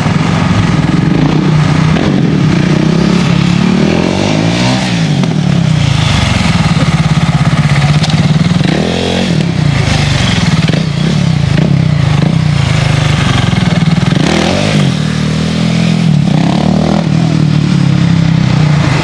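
KTM 1290 Super Duke's V-twin engine revving hard for a stunt, held at high revs. Its pitch drops and climbs back about four times as the throttle is chopped and reopened.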